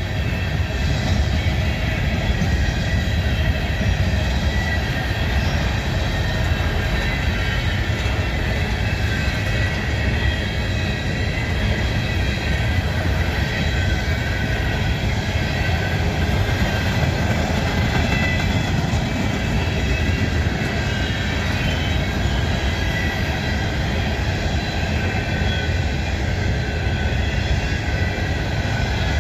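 Empty coal train cars rolling past at speed: a steady rumble of steel wheels on rail with a thin high squeal running over it.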